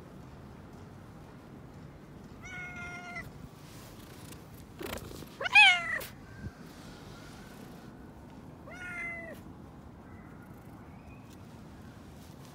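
Calico cat meowing three times, a few seconds apart; the middle meow is the loudest and highest.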